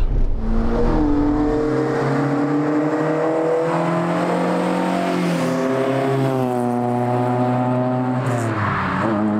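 Fiat Ritmo Abarth 130TC engine, breathing through Weber twin-choke carburettors, running hard as the car comes at speed down the road. The note holds and climbs a little, then drops in pitch near the end as the car goes past.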